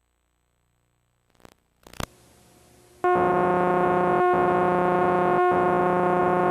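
Two short clicks, then a loud, steady electronic tone held on one pitch, with brief dropouts about once every second.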